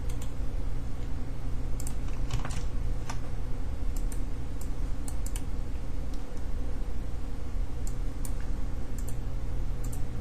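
Scattered, irregular clicks from a computer mouse and keyboard as a program is operated, over a steady low electrical hum.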